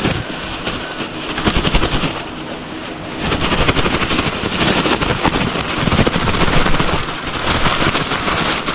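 Thin plastic bag crinkling as it is shaken hard close to the microphone, mixing bread bait inside: a rapid, dense crackle that eases for a moment about two seconds in, then grows louder again.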